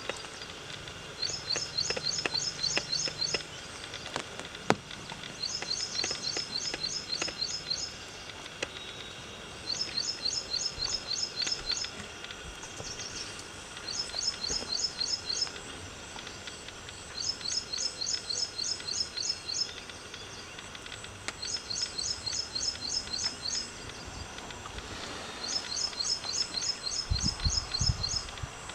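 A bird repeating a fast, high chirping trill in bouts of about two seconds, roughly every four seconds, over a faint steady outdoor background. A short low rumble comes near the end.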